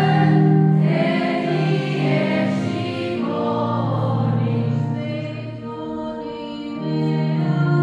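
Choir singing a church hymn in long held notes, several voices together.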